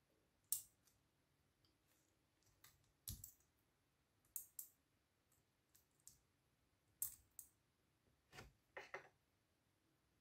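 Faint, scattered clicks and small taps of tweezers and fingertips on a small plastic part and its coil spring from a toy sewing machine, about a dozen at uneven intervals, as a white plastic piece is worked out of its pink housing.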